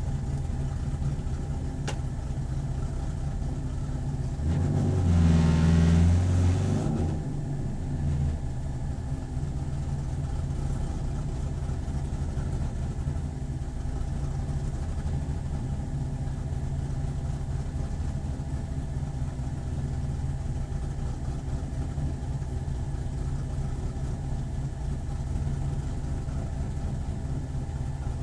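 Corvette C7 racecar's V8 running at a steady, even engine speed, with one louder surge lasting about two seconds some five seconds in.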